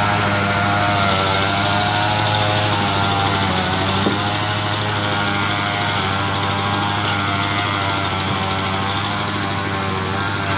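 Engine of a homemade sawmill running steadily, with one brief click about four seconds in.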